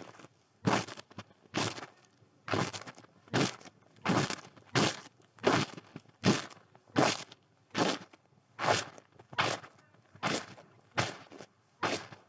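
Footsteps crunching in snow at a steady walking pace, about three steps every two seconds.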